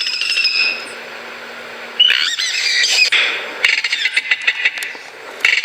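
Yellow-rumped cacique (xexéu) calling: a run of varied high whistled and squeaky notes gliding up and down, broken by harsher rattling ones, with a new burst near the end.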